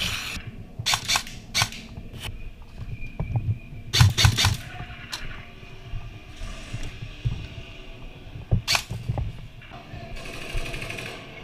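Scattered sharp cracks of airsoft guns firing, one or two at a time. There is a loud cluster of shots about four seconds in and another single crack near the end.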